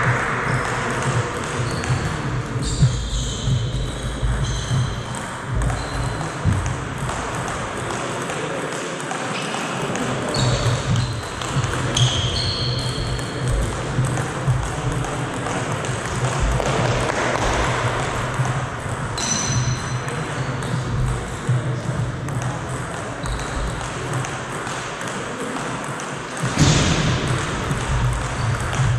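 Table tennis balls clicking on the table and bats, with a few short high squeaks and a steady low hum.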